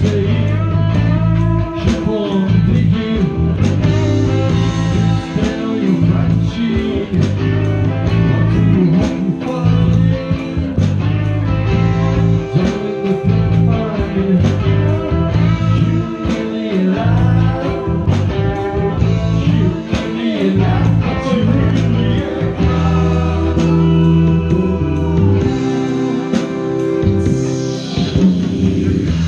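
Live progressive rock band playing: electric guitars, bass and drums, with a sung vocal line.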